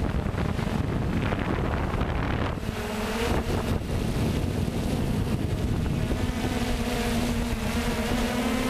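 Hexacopter's electric motors and propellers humming steadily overhead, with a steady pitch that stands out more clearly from about three seconds in. Gusty wind buffets the onboard microphone with a heavy rumble.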